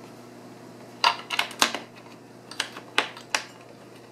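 A scattered run of light, sharp clicks and ticks, about eight of them over two and a half seconds starting about a second in: metal screws with washers being handled and started by hand through the metal seat base into the seat shell's threaded inserts.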